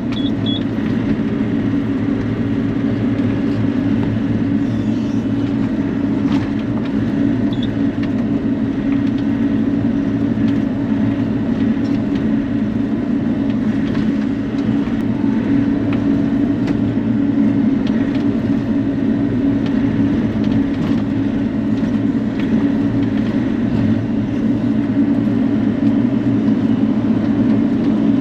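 Bobcat E42 mini excavator's diesel engine running steadily under work, heard from the cab, a constant low drone with small rises and falls in loudness.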